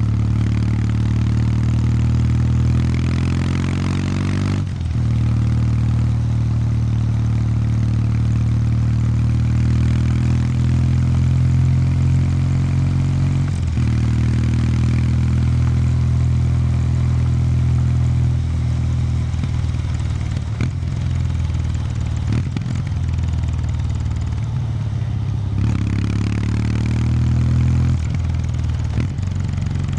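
Kawasaki W800 Street's air-cooled parallel-twin engine running through its stock exhaust under way. The revs climb and drop sharply about five seconds in, step again near fourteen seconds, and climb once more near the end, with a few short knocks in the second half.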